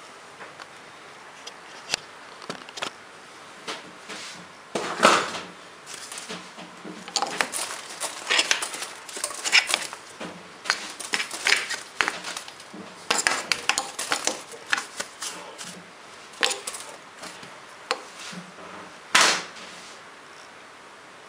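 Stiff brush scrubbing a steel three-jaw lathe chuck, in irregular strokes of scraping with metallic clinks. The loudest strokes come about five seconds in and again near the end.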